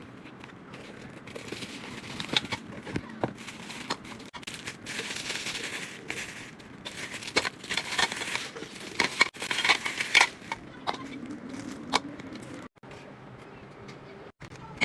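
Plastic food packaging crinkling and rustling as items are handled, with scattered sharp clicks and taps, broken by a few abrupt cuts.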